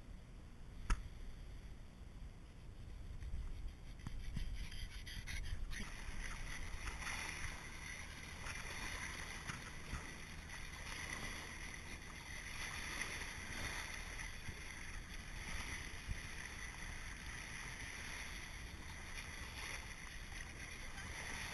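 Wind rumbling on the microphone, with a sharp knock about a second in. From about six seconds in comes the steady hiss and wash of shallow surf foaming close around the microphone.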